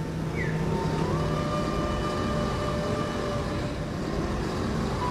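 Steady road and engine noise of a car driving, heard from inside the cabin. A few faint steady tones are held over it from about a second in.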